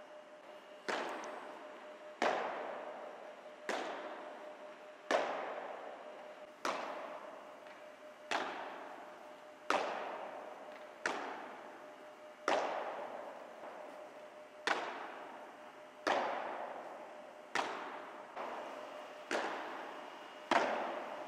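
Padel ball struck back and forth with padel rackets in a steady rally, a sharp hit about every second and a half, each ringing on in a long echo of a big indoor hall. A faint steady hum runs underneath.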